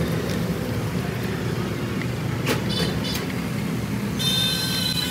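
Steady low mechanical rumble, with a single sharp click about halfway through and a short, high-pitched squeal near the end.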